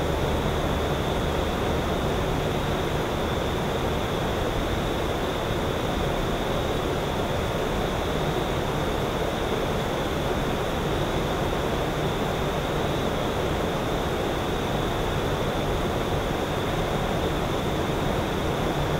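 Steady, even evening ambience by a lake, a constant hiss-like noise with a faint low hum at times and no distinct events.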